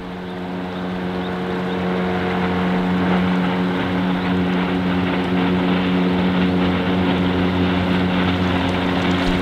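Engine drone at a steady, even pitch, growing louder over the first couple of seconds and then holding.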